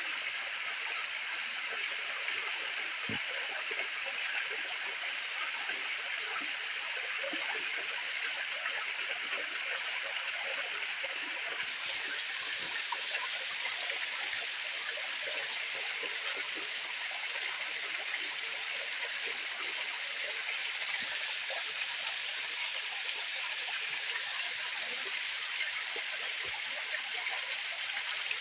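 Steady rush of flowing water, with an occasional faint knock.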